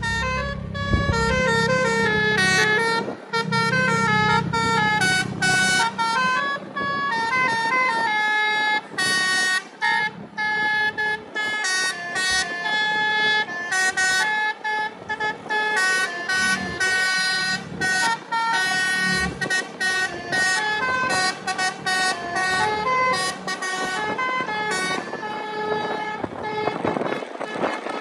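Bus basuri horn played by hand like a pianika keyboard, sounding a quick melody of changing notes. A low drone runs under it for the first few seconds.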